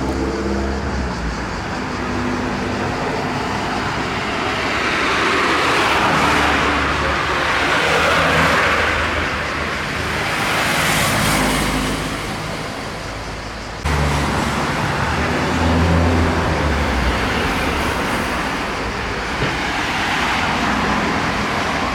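Road traffic noise, with vehicles passing in several swells that rise and fade. It breaks off abruptly about fourteen seconds in and carries on at once.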